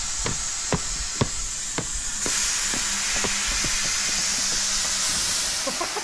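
Small sledge hammer driving long nails through the edge of artificial turf, a run of sharp blows about two a second, over a steady high hiss that grows louder about two seconds in.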